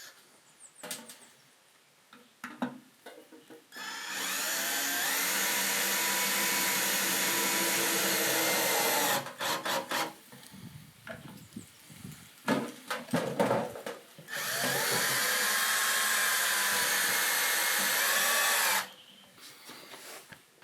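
Cordless drill driving screws into a wooden 2x4, in two long runs of about five seconds each. Short clicks and knocks from handling the drill and wood come before and between the runs.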